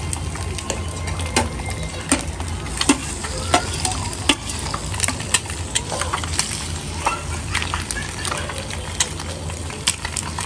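Egg whites sizzling on a flat griddle pan, with many short light clicks and scrapes of a spoon and spatula against the plate and pan as the vegetable filling is spread on. A low steady hum runs underneath.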